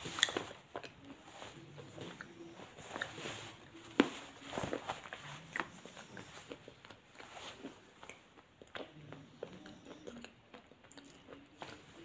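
A person biting and chewing something hard and crunchy close to the microphone: a run of crisp crunches and clicks, the loudest just after the start and about four seconds in.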